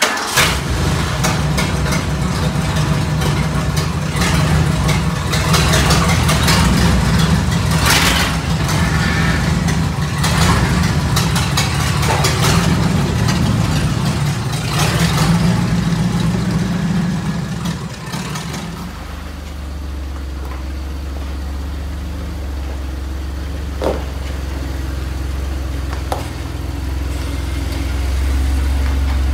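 An old Jeep CJ's engine running loud and uneven as the Jeep is driven. About two-thirds of the way through, it gives way to a Jeep Wrangler JK's V6 running in a lower, steady hum as it creeps forward.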